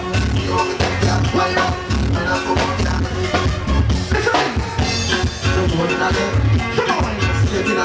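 Upbeat dance music with a drum kit and a pulsing bass keeping a steady beat.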